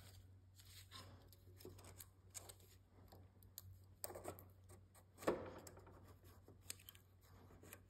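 Near silence broken by faint light clicks and scraping of a steel feeler gauge blade worked between rocker arm and valve stem, checking valve clearance, with one sharper click about five seconds in.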